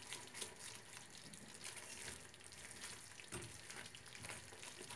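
Silicone spatula stirring, mashing and scraping a soft, wet lor cheese and semolina mixture cooking in a non-stick frying pan, in irregular strokes. There is a single slightly louder knock a little past the middle.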